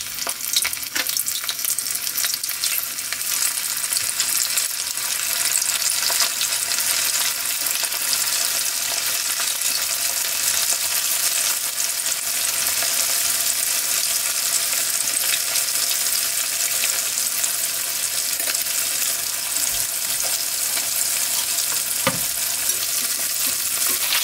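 Starch-and-flour-coated chicken pieces deep-frying in hot oil in a pan: a dense sizzling crackle that grows over the first few seconds as more pieces go in, then holds steady. A single light click near the end.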